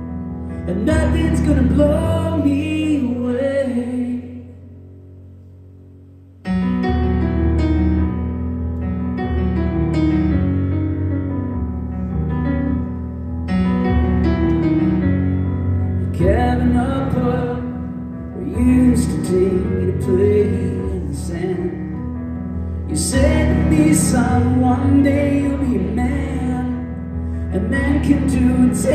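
A man singing a slow song live, accompanying himself on a Yamaha grand piano. About four seconds in, the voice stops and a piano chord fades away quietly. About two seconds later the piano comes back in suddenly and loudly, and the singing returns about ten seconds after that.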